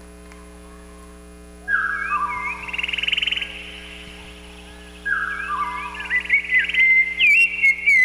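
Bird-like whistled calls opening a dance routine's music track, over a steady sound-system hum. They start after about a second and a half as falling two-note whistles and a fast trill, then come thicker and louder from about five seconds in.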